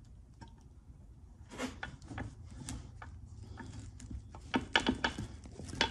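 Light metal clicks and knocks of a splined transmission input shaft and its ball bearing being worked into a cast-iron three-speed gearbox case while the gears inside are lined up: a few scattered at first, more of them near the end.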